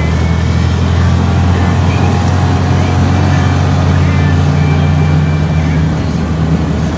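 Motor vehicle engine running at a steady speed, a loud, even low drone with road noise.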